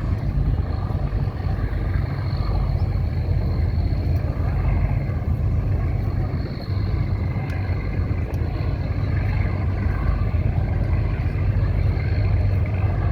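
Steady low rumble with a hiss over it, outdoor background noise, and a faint high tone held throughout.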